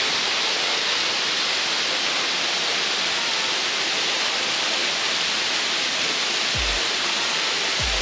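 Waterfall splashing steadily onto rocks and into a pool below, an even rushing hiss. A couple of low thumps come near the end.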